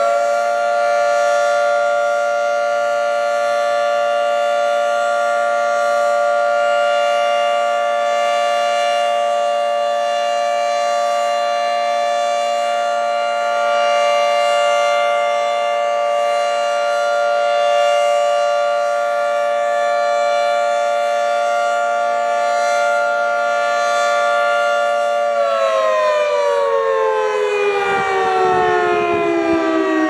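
Fire station house siren, a pole-mounted horn array, sounding in its noon test: it reaches full pitch right at the start, holds a steady loud tone of several pitches at once for about 25 seconds, then winds down in a long falling glide near the end.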